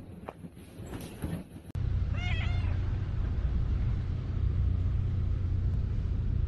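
A black cat gives one short meow about two seconds in, over a steady low rumble that starts suddenly just before it.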